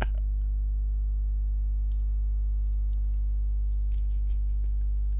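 Steady low electrical hum with a few faint computer mouse clicks scattered through it, about two seconds in and again around four seconds.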